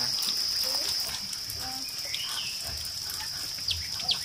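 Steady high-pitched chorus of crickets, with two short chirps near the end.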